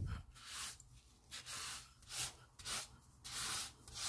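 Short wet swishes, roughly every half second, of a hand wiping leftover ground masala and water off a stone grinding slab (ammi).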